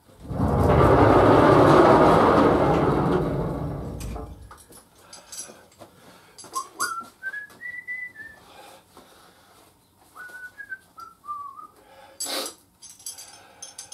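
A loud rushing noise starts suddenly and fades out over about four seconds. Then a man whistles two short phrases of a few notes each. A sharp click and some light clinks come near the end.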